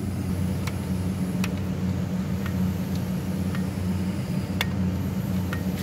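Steady low machine hum, with a few faint sharp clicks scattered through it.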